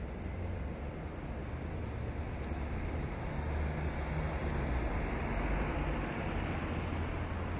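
Street traffic: a steady low rumble that swells as a car drives past through the junction about five seconds in.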